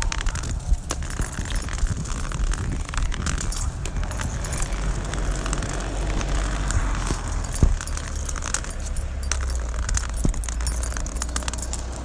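Rustling handling noise with irregular clicks and jingles from a phone recorder carried while walking, over a low steady rumble, with one sharper knock about two-thirds of the way through.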